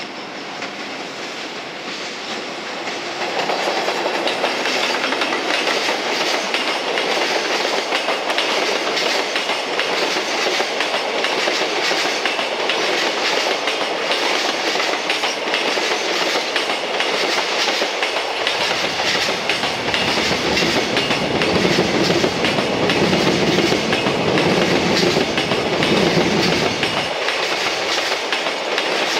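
JR Freight container train running past: an EF210 electric locomotive followed by a long line of Koki 100-series container wagons, wheels clattering over the rail joints. It gets louder a few seconds in, and a deeper rumble comes in for a stretch near the end.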